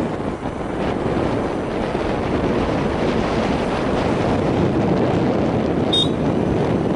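Steady wind rushing over the microphone of a camera travelling along a road in a moving vehicle, with the vehicle's running noise underneath. A short high beep or chirp about six seconds in.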